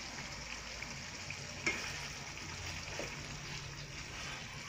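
Chicken pieces frying in oil and their own juices in a nonstick pan, a steady sizzle, with a sharp knock of the spatula against the pan about a second and a half in and a fainter one at about three seconds.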